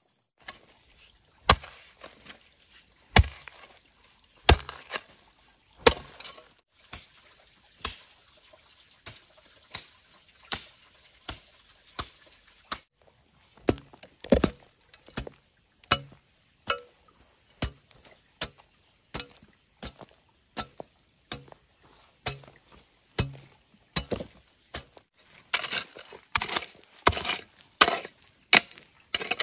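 Chopping: a blade striking wood over and over. The first few strokes are slow and heavy, then they come steadily at under a second apart, and they quicken into a fast run near the end.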